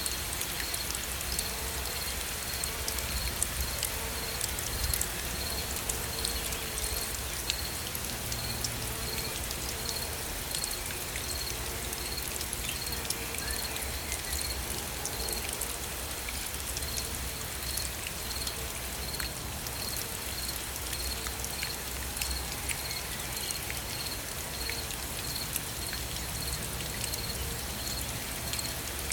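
Steady gentle rain with many small drops pattering. A faint, high chirp repeats evenly about twice a second underneath.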